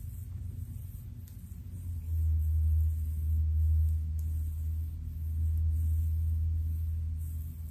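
A steady low rumble comes in about two seconds in and fades away near the end, drowning out the faint sounds of the hair scratching.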